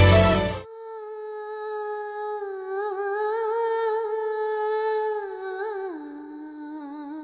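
Background music cuts off about half a second in, and a lone high voice hums a slow, drawn-out melody with a slight waver, stepping down in pitch near the end as the sound fades.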